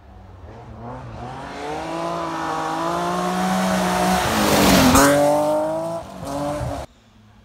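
Gravel rally car approaching at speed, its engine pitch climbing as it accelerates and then holding high. About five seconds in it passes close by: the pitch drops and the rush of tyres on gravel peaks. The sound cuts off abruptly near the end.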